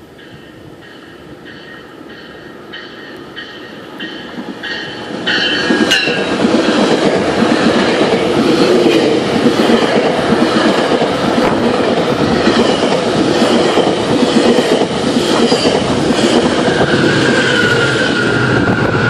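GO Transit commuter train passing through at speed: its bell rings about twice a second as it approaches, then about five seconds in the loud, steady noise of the bilevel coaches and locomotive going by takes over, with a wheel squeal near the end.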